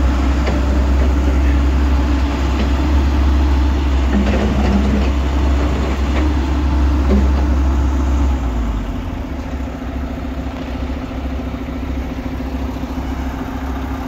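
Heavy diesel equipment engines running, a deep steady rumble with a few faint clatters. About eight seconds in the deep rumble drops off abruptly, and a lighter steady engine sound continues.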